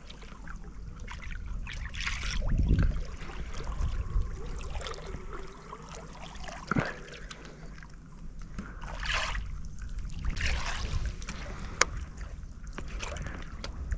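Water splashing and lapping at the side of a fishing boat as a lure and rod tip are swept through the water beside it, over a low wind rumble on the microphone. A single sharp click comes near the end.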